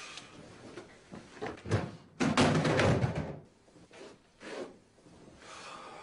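A string of short knocks and bumps, with one louder burst of noise lasting about a second a little past two seconds in.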